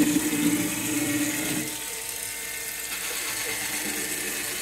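Cordless electric spin scrubber's motor whirring as its brush head spins on a wet stainless steel sink under running tap water, with a knock right at the start. The steady motor hum is strongest for about the first two seconds, then drops away, leaving a hiss of water and scrubbing.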